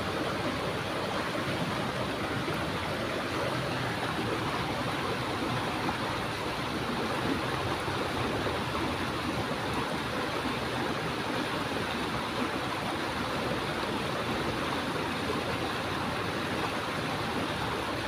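Shallow, fast-flowing stream water rushing and churning steadily over rocks.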